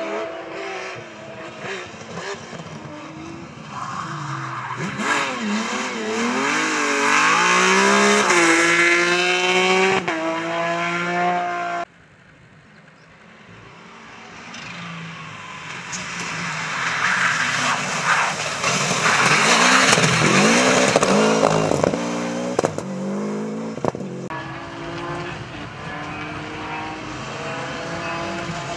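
Rally cars driven hard past the camera one after another. Each engine's pitch climbs and falls repeatedly with the gear changes and lifts. The sound cuts abruptly twice, from one car to the next.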